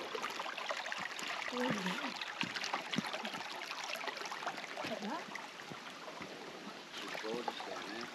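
Faint creek-bed ambience: water trickling, with scattered footfalls and knocks on dry fallen logs. A few short pitched calls come and go.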